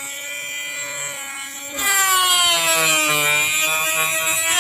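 Mini die grinder (rotary tool) with a small metal cut-off disc whining as it cuts into a strip of wood. About two seconds in the sound gets louder and rougher as the disc bites, the pitch sagging under the load and picking back up near the end.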